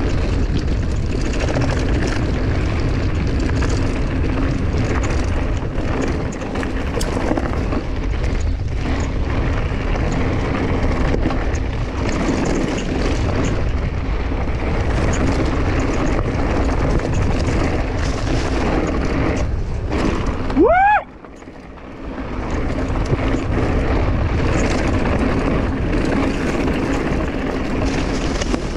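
Mountain bike riding down a rough trail: tyres rumbling and the bike rattling over rocks, with wind buffeting the camera microphone. About two-thirds of the way through comes a short squeal rising in pitch, then the noise drops away for about a second before it returns.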